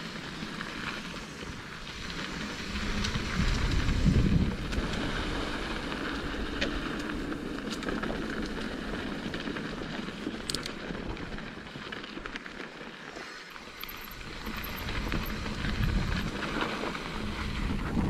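Mountain bike rolling along a dirt trail: steady tyre noise with the rattle of chain and frame. A low rumble from wind or bumps swells about four seconds in and again near the end.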